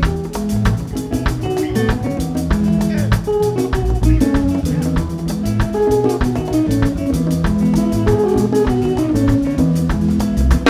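Live band playing an instrumental Congolese rumba groove: plucked guitar lines over bass and drum kit, with a steady beat.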